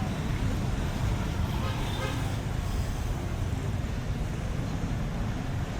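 Steady rumble of street traffic, with faint voices briefly audible about two seconds in.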